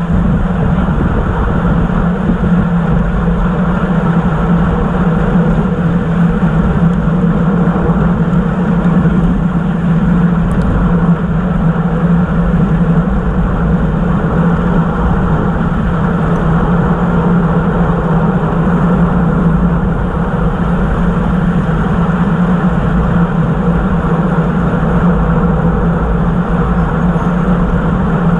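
Steady rushing wind noise on a bicycle-mounted camera's microphone at racing speed, about 25 mph, mixed with the bike's tyre and road noise.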